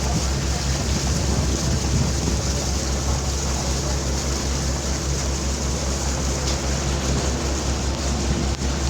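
A river tour boat's engine droning steadily with a constant low hum, under an even rush of wind and water.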